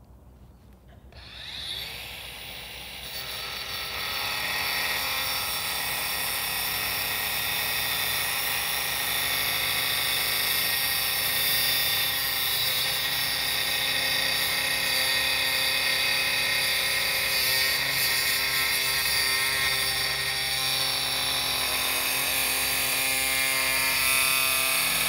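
Cordless angle grinder spinning up about a second in, then cutting steadily through the cast-iron body of a hand-cranked meat grinder with a high, even whine.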